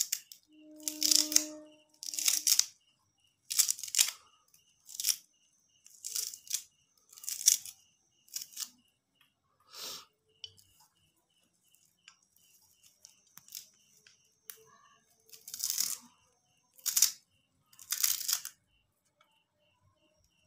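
Knife cutting through a bunch of fresh coriander stems held in the hand: a series of short, crisp cuts, roughly one a second, with a pause of a few seconds in the middle.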